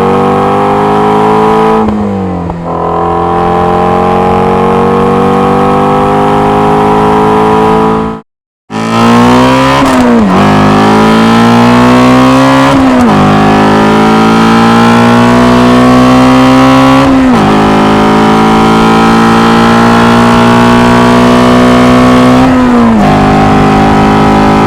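Shelby GT350's 5.2-litre flat-plane-crank V8 through a Borla ATAK stainless cat-back exhaust, accelerating hard under load. The engine note climbs steadily and drops sharply at each upshift. This is one pull with a shift about 2 seconds in, then a short cut, then a second run that upshifts four more times.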